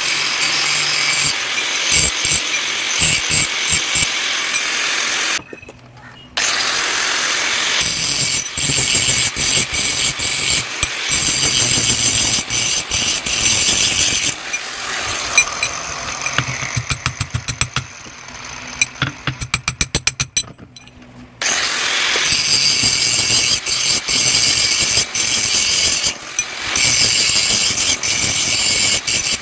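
A power tool working metal runs in long stretches. It stops briefly about five seconds in and again around twenty seconds, with a fast run of ticks just before the second stop.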